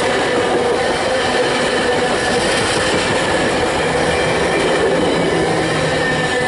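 Rocky Mountaineer passenger train rolling past, a steady rumble and rattle of wheels on rail with a light, thin wheel squeal.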